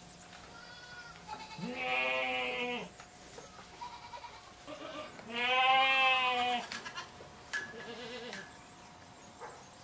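Alpine dairy goats bleating: two loud, drawn-out bleats of about a second each, a few seconds apart, with fainter short bleats between and after them.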